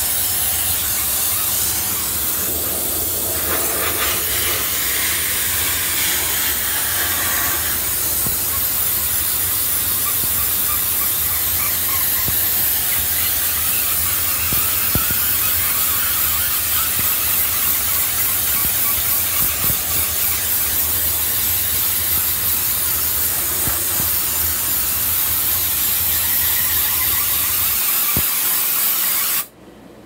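High-pressure steam jet from an Optima CMF diesel steamer's wand hissing steadily as it blasts an air-conditioner condenser coil, with a low steady hum underneath. The hum drops out and the hiss cuts off suddenly near the end.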